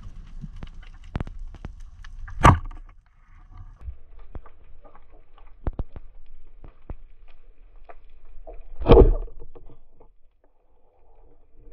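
Underwater sound of a band-powered speargun being fired, a short loud burst about nine seconds in, with the shaft striking a striped red mullet. Sharp scattered clicks and crackle run through the underwater background, with one sharp click a couple of seconds in.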